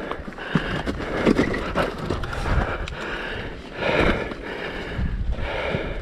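A rider breathing hard after exertion, a breath about every second, over scuffing and handling noise.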